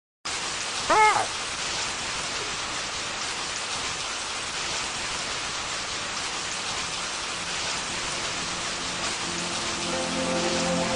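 Steady hiss of rain ambience, with one short rising screech about a second in, given as a pterosaur's cry. Soft music with held notes comes in near the end.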